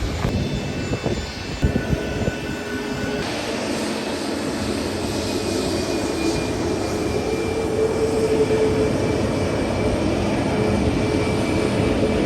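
Passenger airplane's engines running with a steady whine, slowly growing louder, with a few knocks a second or two in.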